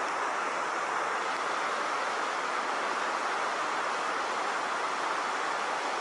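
River rapids, white water rushing steadily over rock ledges and boulders in an even, unbroken hiss.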